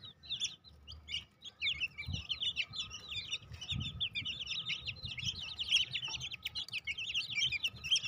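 Young chicks peeping in a rapid, continuous chorus of short high chirps that builds up about a second and a half in, with a couple of low clucks from the mother hen.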